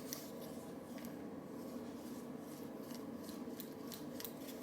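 Faint, scattered light clicks and rubbing from a metal fidget toy being worked in the fingers, over a steady low hum.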